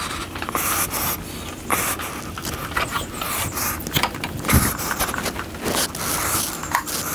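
Socket wrench on the crankshaft bolt turning a BMW M20 six-cylinder over by hand, an irregular run of clicks and scraping as the crank and new timing belt are rotated.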